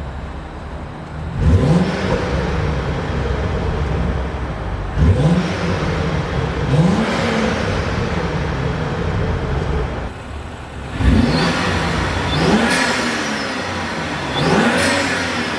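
A BMW N55 turbocharged 3.0-litre inline-six fitted with a CTS Turbo aftermarket intake, revved about six times: each rev climbs and falls back in pitch within about a second, over the engine's steady running.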